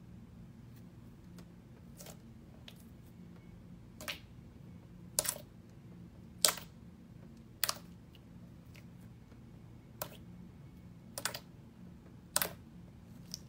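Glossy slime squeezed and poked by hand, giving sharp little pops and clicks as trapped air bursts, about one a second, some in quick pairs. A faint steady low hum runs underneath.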